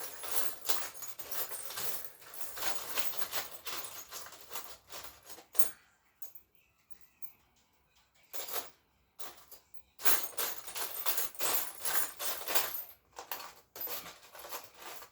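Rapid metallic clicking and rasping of hand tools as a new top bolt with its washer is screwed into the mount. It comes in two long runs with a short clink between them.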